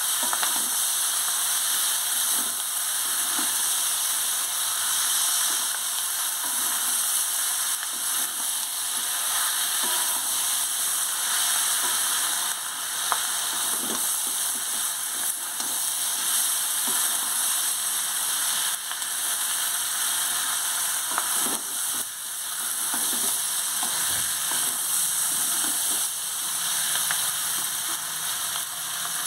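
Chopped onions, green capsicum and tomato frying with a steady sizzle in a steel kadai, stirred with a wooden spatula that scrapes and knocks lightly against the pan now and then.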